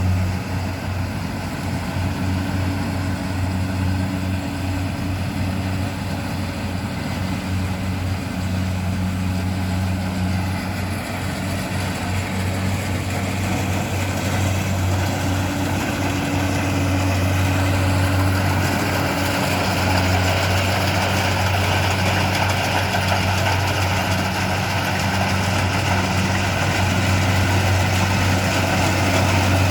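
Engine of a rice harvesting machine running steadily at a constant low hum. A rushing mechanical noise over it grows louder through the second half.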